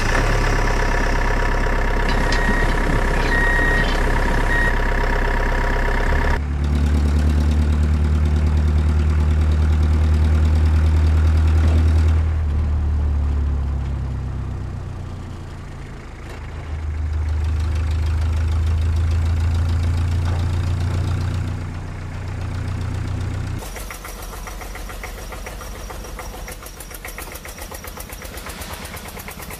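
Tractor engine running with a deep, steady drone that shifts in pitch and loudness a few times, easing off briefly near the middle. In the last six seconds it turns into a faster, even clatter.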